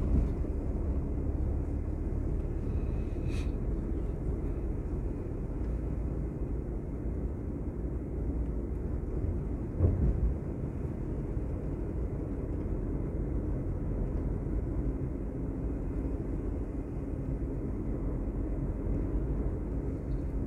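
Steady low rumble of a vehicle travelling along a road, with one brief thump about ten seconds in.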